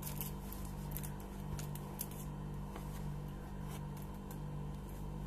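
Light clicks and crinkles of a VHS cassette in its plastic sleeve being handled and turned over in the hands, over a steady low hum.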